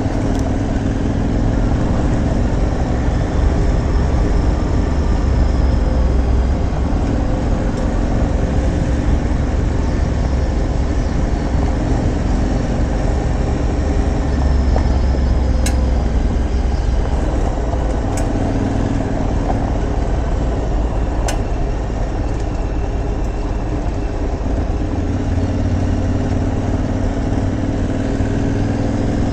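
Aprilia Tuareg 660's parallel-twin engine running as the bike is ridden, its pitch slowly rising and falling with the throttle over a steady rush of noise. Three brief sharp ticks come in the middle.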